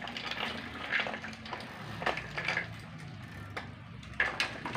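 Child's bicycle with training wheels rolling over concrete, with irregular scrapes and rattles from the wheels and frame.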